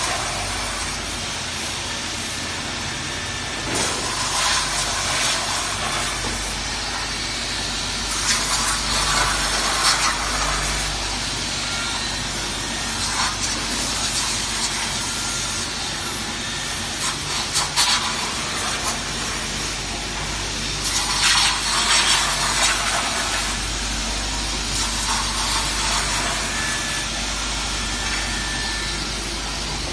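Single-side veneer beveling machine running: a steady low motor hum, with louder stretches of hissing noise coming back every few seconds.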